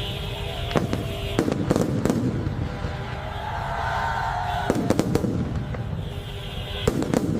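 Fireworks going off: bursts of sharp bangs and crackling over a continuous low rumble, with clusters of bangs about a second in, around the middle and near the end.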